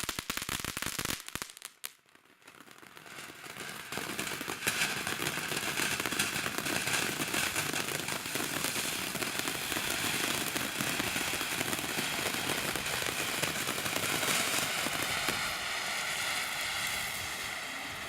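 TNT Color Blast firework going off: rapid crackling pops for about two seconds, a short lull, then a steady hissing spray with fine crackle that builds from about three seconds in.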